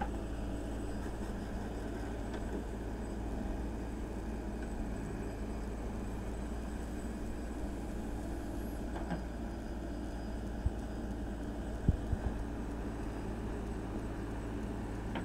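JCB 3DX backhoe loader's diesel engine running steadily as the backhoe digs and loads cow-dung manure. A few short knocks come about two-thirds of the way through.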